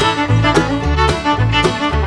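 Background music: an upbeat bluegrass tune with fiddle and banjo over a bass line with a steady beat.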